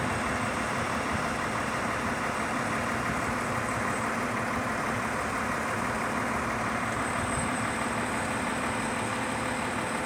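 Engine of a truck-mounted mobile crane running steadily during a lift.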